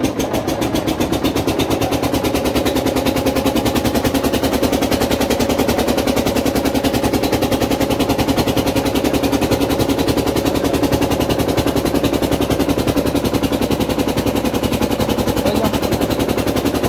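Ferry boat's engine running steadily close by: a loud, rapid, even chugging.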